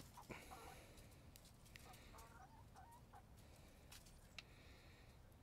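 Domestic hens clucking softly now and then, a few short calls over near silence, with scattered faint clicks.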